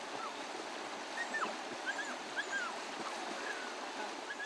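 Outdoor ambience: a steady hiss with a few short, high bird chirps scattered through it.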